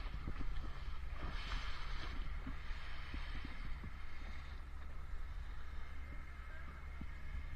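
Panga's outboard motor running steadily, with wind buffeting the microphone.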